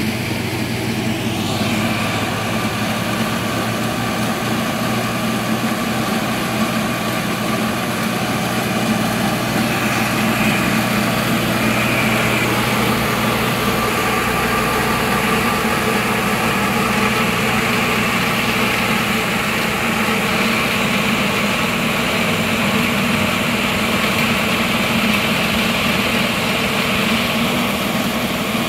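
Engine of a concrete-cutting crew's equipment idling steadily: a constant low hum with a fainter, higher whine over it.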